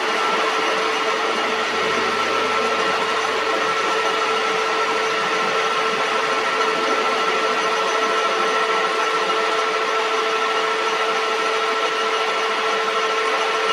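Homemade scrap-iron metal lathe running steadily while turning a metal part: a constant two-tone machine whine over an even, rough hiss.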